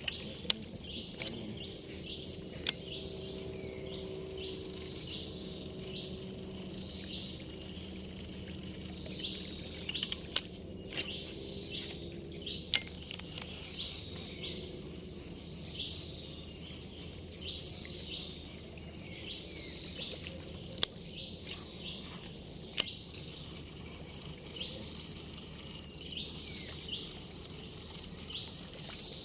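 A bird chirping over and over in short high notes, about once or twice a second, with a few sharp clicks scattered through.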